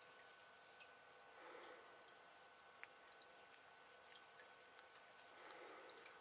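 Near silence: faint room tone with a steady electrical hum, a few small ticks and two soft brief rustles.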